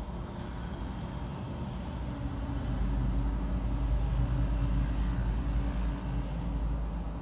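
A parked truck's diesel engine idling with a steady low rumble, which grows louder from about three seconds in.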